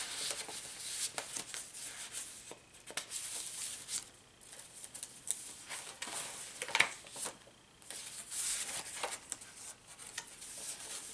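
Paper and card pages of a handmade junk journal rustling as they are turned and handled, with irregular soft crinkles and taps and one sharper tap about seven seconds in.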